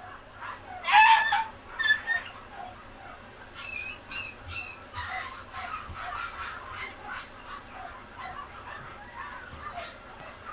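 Pomeranian puppy's high-pitched yelps: two loud ones about a second and two seconds in, then softer, shorter squeaks and whimpers.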